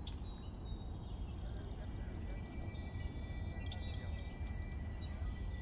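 Outdoor ambience: a steady low rumble with birds chirping, including a quick run of high, falling chirps about four seconds in.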